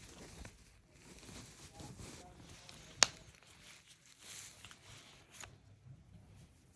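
Hands working an AirPods Pro charging case out of its old protective case: faint rubbing and fiddling, with one sharp click about three seconds in and a lighter click later.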